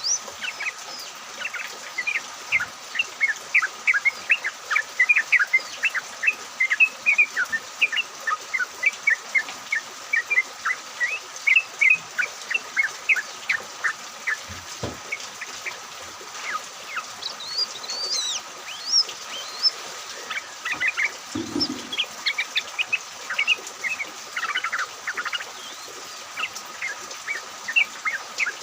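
A flock of yellow-vented bulbuls (trucukan) chattering: a dense, continuous run of short, quick chirps from several birds at once, over a steady hiss.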